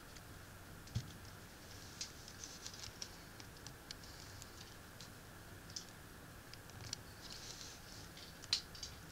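Small plastic clicks and rustling as translucent plastic blast-effect pieces are handled and pressed into the ports of a plastic toy figure, with a dull knock about a second in and a sharper click near the end.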